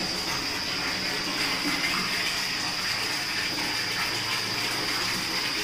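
Water running steadily from a tap, with a steady high whine underneath.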